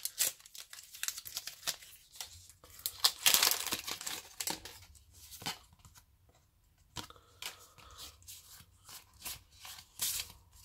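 Foil wrapper of a Pokémon booster pack being torn open and crinkled, with a dense rip about three seconds in, followed by scattered crackles of the wrapper and the cards being slid out and fanned.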